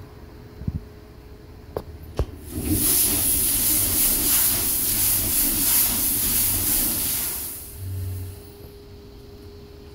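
Compressed air hissing loudly out of an EMD CF7 diesel locomotive's air system for about five seconds, then tailing off. A few sharp clicks come just before it.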